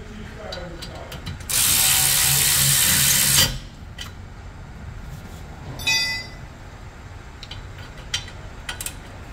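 Cordless electric ratchet with a 7 mm Allen bit running for about two seconds, driving a rear brake caliper bolt in, then stopping. A brief high chirp about six seconds in and a few light clicks of tools being handled follow.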